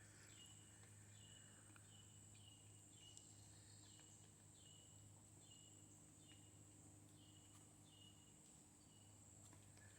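Near silence: faint outdoor ambience with a steady high insect drone and a faint bird note, falling in pitch, repeated about every half second.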